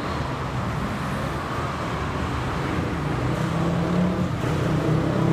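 Road traffic noise: a steady hum of passing vehicles, with a motor vehicle engine growing louder over the last couple of seconds.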